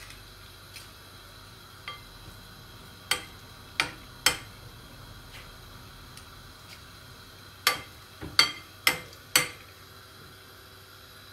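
Metal spoons clinking against the frying pan and glass mixing bowl as spoonfuls of zucchini batter are scooped and pushed off into hot oil: two groups of sharp clinks, three a few seconds in and four near the end. A faint steady sizzle of the frying oil runs underneath.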